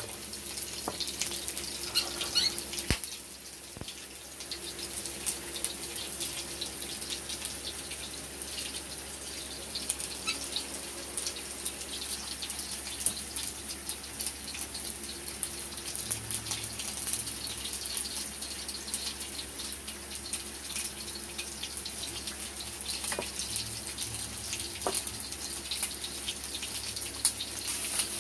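Hot cooking oil sizzling and crackling steadily in frying pans, with potato slices and breaded chicken pieces frying.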